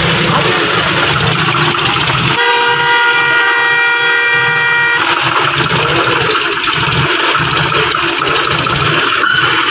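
John Deere 5036D tractor's diesel engine labouring as it tries to pull a trolley loaded with bricks, the tractor the owners say has no power. A vehicle horn blares steadily for about two and a half seconds, starting a couple of seconds in.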